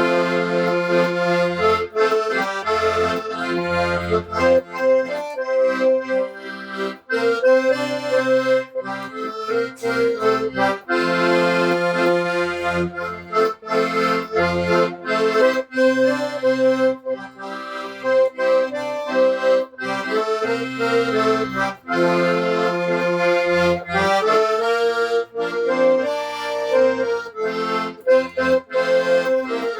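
Accordion playing a tune: a changing melody in sustained reed tones over short, separate bass notes.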